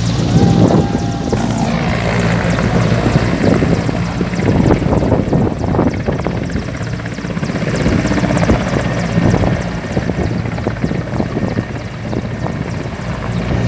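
Helicopter running close by: a steady engine drone under the repeated beat of its rotor blades.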